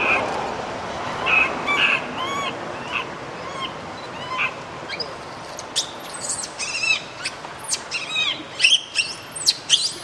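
Baby long-tailed macaque crying: short, high-pitched arching squeals, coming faster and shriller in the second half.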